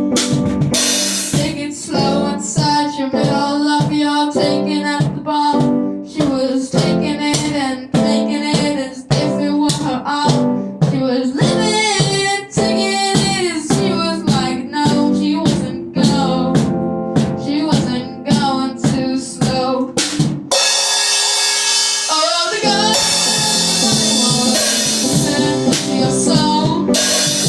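A band's rock song: a drum kit keeps a steady beat under guitars and a sung vocal line. About twenty seconds in, the drums and bass drop out for about two seconds, then the full band comes back in.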